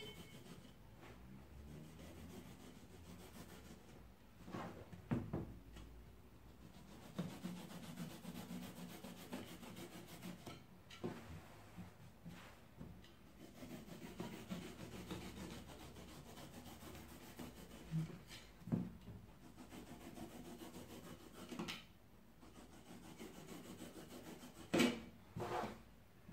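A utility-knife (cutter) blade slicing and carving through thick upholstery foam in long strokes, a soft scraping rasp. There are a few sharper, louder strokes or knocks, several close together near the end.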